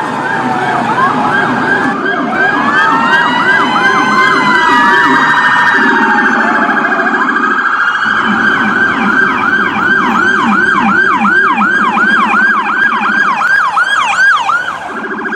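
Electronic emergency-vehicle siren cycling through tones. A fast yelp of about three sweeps a second lies over a quicker, lower warble, with a slower wail-like rise and fall in the first few seconds.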